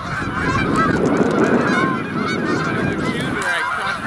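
A large flock of geese honking in flight overhead, many calls overlapping into a continuous clamor. A low rushing noise lies under the calls for the first couple of seconds.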